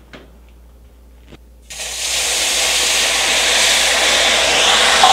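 Water poured into a pan preheated in the bottom of a 450-degree oven, hissing and sizzling loudly as it flashes to steam to give a humid oven for a crisp bread crust. The hiss starts suddenly about a third of the way in, after a couple of faint clicks.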